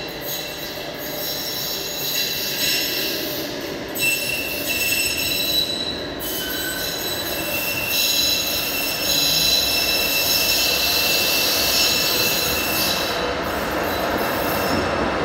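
Metro train approaching through the tunnel and pulling into the station, its wheels squealing on the rails in several high, steady tones over a rumble that grows louder as it arrives.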